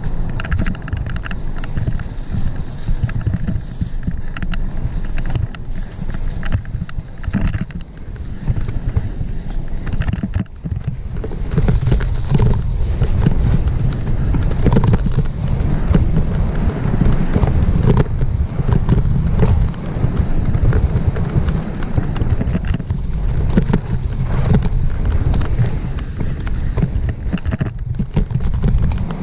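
Wind buffeting a helmet-mounted camera's microphone, over the rattle and knocks of a full-suspension mountain bike riding fast down a rough dirt singletrack. It gets louder from about eleven seconds in.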